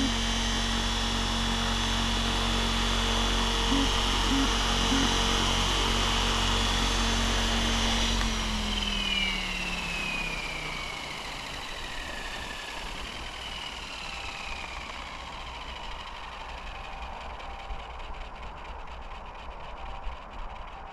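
Mikado Logo 700 electric RC helicopter on the ground with its motor and rotor running at a steady whine. About eight seconds in the power is cut and the pitch falls away over several seconds as the rotor spins down.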